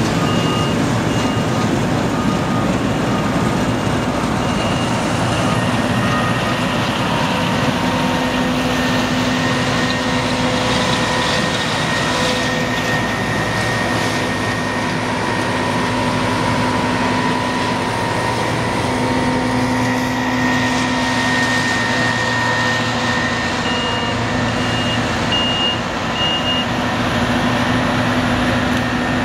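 Combine harvesters and a tractor running at work, a steady heavy diesel drone with a high machine whine. Short, evenly spaced warning beeps sound over it for the first few seconds and again briefly near the end.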